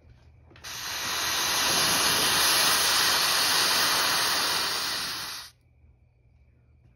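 Homemade smoke mixture lit by a match fuse, burning with a loud, steady hiss that starts suddenly about half a second in and cuts off abruptly about five seconds later as the mixture burns out.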